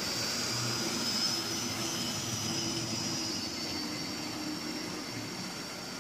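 Hornby OO gauge Class A1 'Tornado' model locomotive running past with its electric motor whining. The whine is loudest about a second in and then slowly fades as the train moves away.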